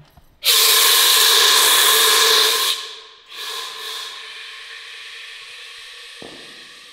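Fire extinguisher discharging: a loud hiss lasting about two seconds, then a second shorter burst about half a second later that fades away slowly. There is a soft knock near the end.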